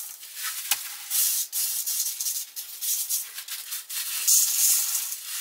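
Small porous ceramic biogravel poured from a plastic bag into an acrylic Biorb fish tank: a hissing rattle of granules that comes in uneven surges with short pauses, loudest a little after four seconds, with a sharp click about a second in.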